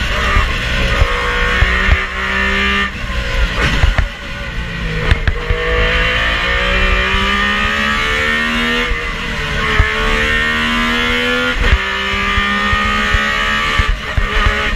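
Metro 6R4 rally car's 3.0-litre V6 heard from inside the cabin, pulling hard up through the gears: the engine note climbs in pitch and drops sharply at each gear change or lift, several times over, with a few sharp cracks near the drops.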